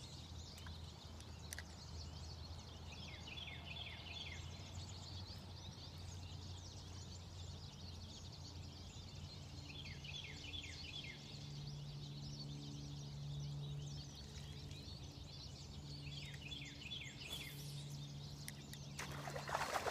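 Faint outdoor ambience: a bird calls a quick burst of rapid descending chirps three times, about seven seconds apart, over a low steady hum. A short rustle comes near the end.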